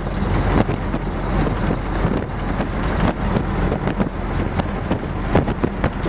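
A vintage car driving, heard from inside the cabin: a steady low engine hum and road noise, with frequent small clicks and rattles.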